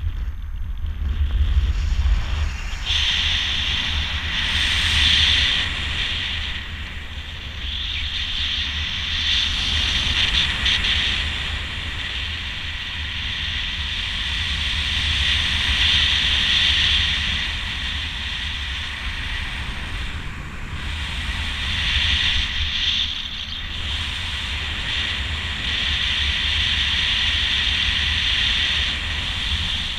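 Wind rushing over the microphone in flight under a speedflying miniwing: a low buffeting rumble under a hiss that swells and eases every few seconds.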